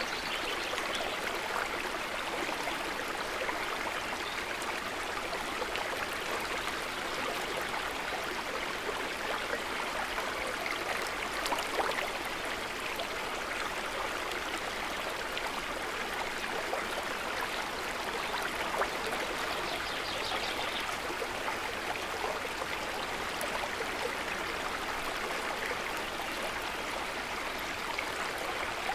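River water running steadily, a constant even rush with a couple of slightly louder moments, about twelve and nineteen seconds in.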